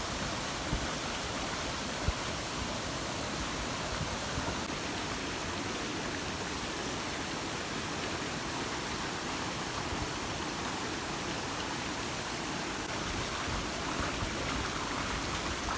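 Waterfall pouring into a pool: a steady, even rush of falling water, with a brief faint knock about two seconds in.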